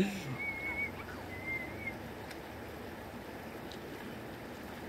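Shallow creek flowing over rocks, a steady rush of water. Two short, high, wavering whistle-like notes sound within the first two seconds.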